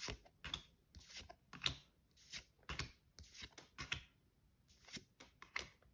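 A stack of Yu-Gi-Oh! trading cards being flipped through by hand, with soft swishes and flicks as each card slides against the next, about a dozen at an uneven pace.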